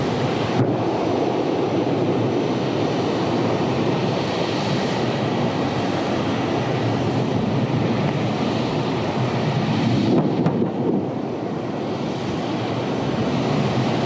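A loud, steady roar of noise that starts abruptly, with a brief break about ten seconds in.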